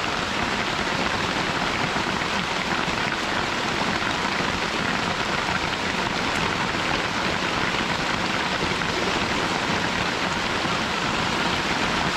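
Steady rain falling, an even hiss that keeps up without a break.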